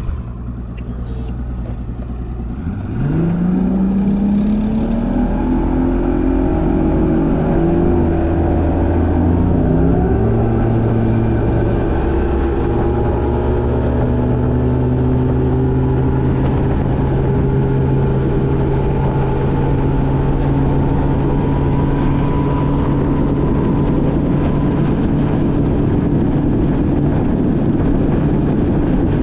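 Bass boat's outboard motor opening up from low revs: about three seconds in the engine note starts climbing for several seconds as the boat accelerates, then holds steady at high RPM for a full-throttle run.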